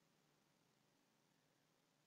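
Near silence: faint, steady background hiss.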